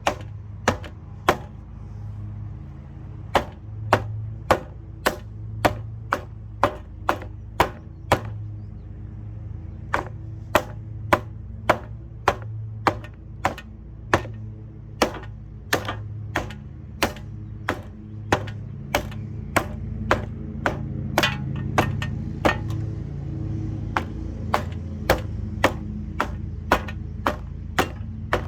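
Lasko box fan running with a low, pulsing motor hum, over a sharp click about twice a second that stops for a second or two a couple of times.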